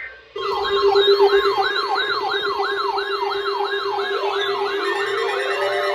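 Emergency vehicle siren in a fast yelp, starting suddenly and rising and falling about three times a second, with a second siren's slower rising wail joining about four seconds in.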